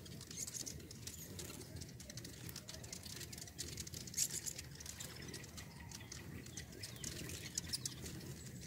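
A crowd of hummingbirds feeding and chasing one another, giving high, squeaky chips and twitters that come thick and fast, with sharper bursts about four seconds in and near the end. A low wing hum runs underneath.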